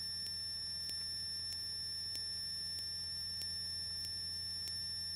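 Electrical noise on a Cessna 172RG's wired intercom audio feed with no one talking: a steady high-pitched whine of several constant tones over a low hum, with faint ticks about every 0.6 seconds.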